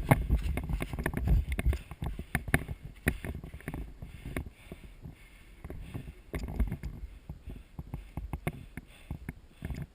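Irregular crackling, rustling and low rumbling thumps from a player moving on foot through dry brush with the camera on him. The thumps are heaviest at the start.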